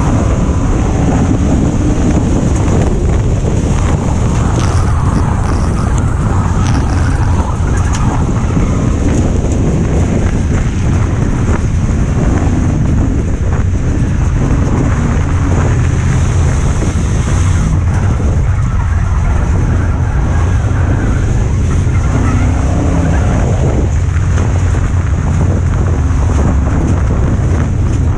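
Heard from inside the cabin of a Ford Crown Victoria dirt-track race car: its V8 engine running hard and steady at racing speed, with a deep, continuous rumble and wind noise.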